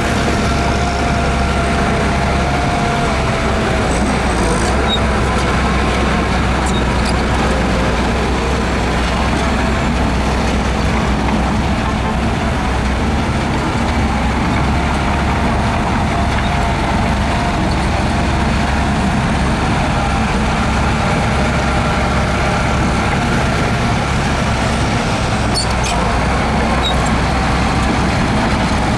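Shantui DH17C2 bulldozer's diesel engine running steadily under load while pushing dirt, with a few light clicks near the start and near the end.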